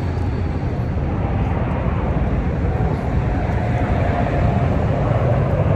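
Steady rumble of passing engine noise, with a faint steady whine that comes in about halfway and grows a little louder.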